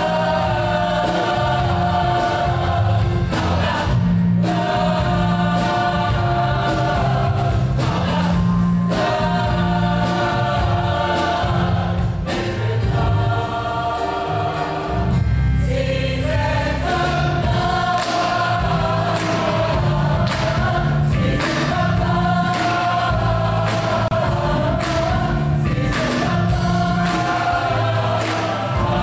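Mixed choir of men and women singing a show-tune medley in harmony, in sung phrases a few seconds long, with a short break about halfway through.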